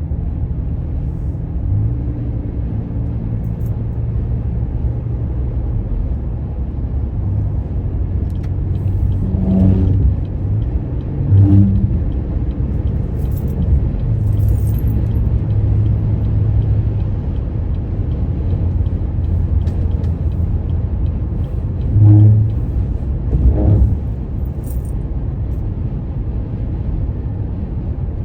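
Steady low rumble of a motor vehicle, with a few short louder swells.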